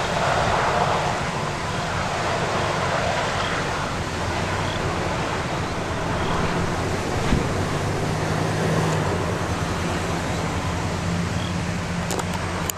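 Steady rushing wind noise on the microphone, with a low vehicle engine hum underneath and a single thump about seven seconds in.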